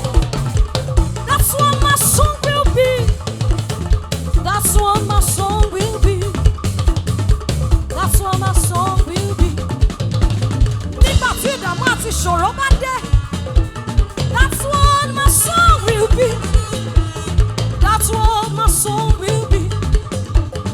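Upbeat worship band music with a drum kit keeping a steady beat with snare hits, over bass and melodic instrument lines.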